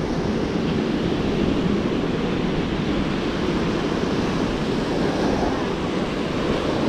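Surf: small waves breaking and washing up a sandy beach in a steady wash, with wind rumbling on the microphone.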